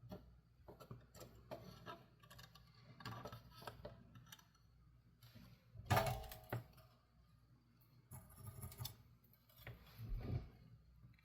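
Faint clicks and taps of small tools against plastic and metal while a toy's battery terminals are worked on, with one louder clatter about six seconds in.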